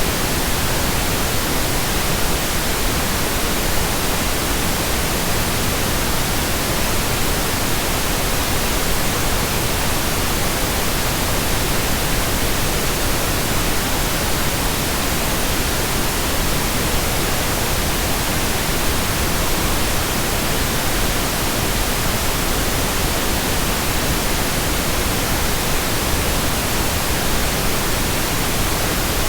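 Steady, unchanging pink noise: an even hiss spread over the whole range, with no tones or events.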